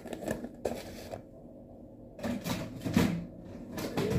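Clear plastic food containers knocking and clicking against each other and the counter as they are handled and stacked: a few short knocks, a pause of about a second, then a quicker run of clatter.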